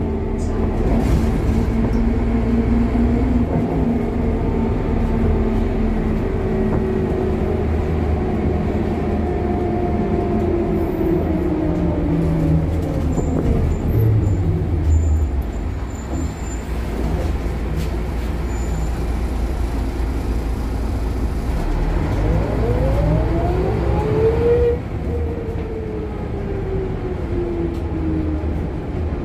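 Ikarus 260 city bus heard from inside the passenger cabin while under way: the diesel engine and ZF automatic gearbox hum with the pitch falling slowly. The engine then revs up and drops abruptly in pitch about 25 seconds in, as the gearbox shifts up.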